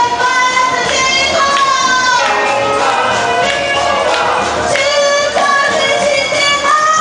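Music with singing: a voice holds long notes over a continuous instrumental backing.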